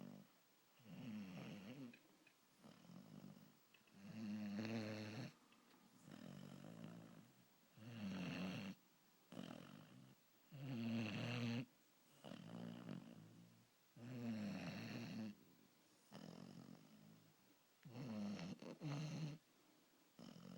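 A sleeping Labrador puppy snoring, with a snore on each breath about every second or two and louder and softer snores alternating.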